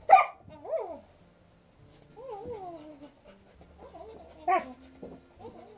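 A dog whining and yelping in a series of short calls that slide down in pitch, with the loudest ones at the start and about four and a half seconds in, while it is rubbed and played with on its back.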